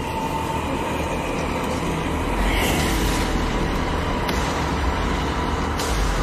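A loud, steady low rumble with a dense noisy haze above it: an ominous background drone from a film soundtrack, swelling briefly about two and a half seconds in.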